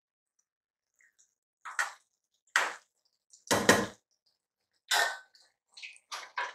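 Metal perforated ladle scraping and knocking against an aluminium pressure cooker while spreading rice level: four short strokes about a second apart, then a few fainter ones near the end.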